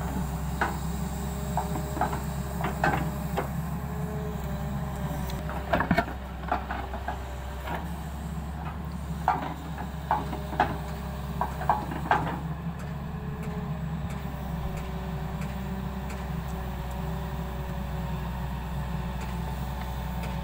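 Tata Hitachi excavator's diesel engine running steadily as its bucket digs into earth, with scattered sharp clanks and knocks of the bucket and stones, bunched in short clusters through the first twelve seconds.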